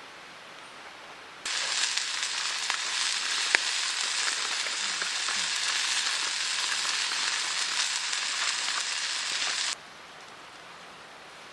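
Meat frying over a camp fire: an even sizzling hiss with scattered small pops. It starts abruptly about a second and a half in and cuts off suddenly near the end.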